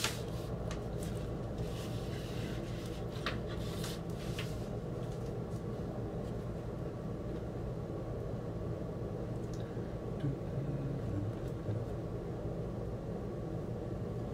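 Light rustling and a few soft clicks in the first few seconds as a vinyl record and its paper inner sleeve are handled, then mostly a steady low room hum.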